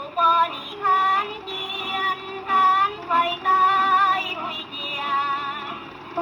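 Music with a high female singing voice carrying a wavering melody.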